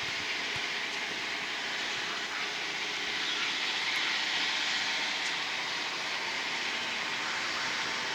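Steady vehicle engine noise, an even rushing hiss with no distinct beat, swelling slightly a few seconds in.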